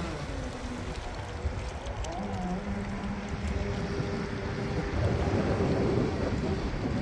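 A 6S electric RC speedboat running fast on choppy water, its motor a thin whine that wavers in pitch, under heavy wind buffeting the microphone. The wind rumble grows louder about five seconds in.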